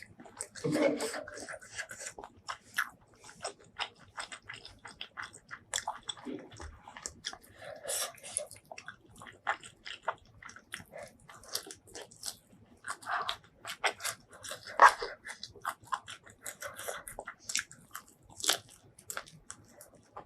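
Close-miked eating sounds: a steady run of wet chewing, smacking and crunchy bites in irregular quick clicks, with one sharper crunch about three quarters of the way through.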